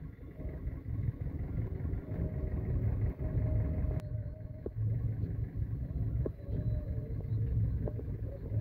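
Diesel engines of a JCB 3DX backhoe loader and a reversing tractor running at a steady, pulsing low rumble, with a few faint knocks.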